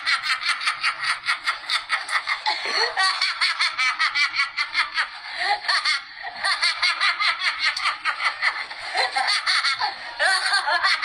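A man's exaggerated evil laugh: rapid, high-pitched cackling in quick even pulses, breaking off briefly about six seconds in and again shortly before the end.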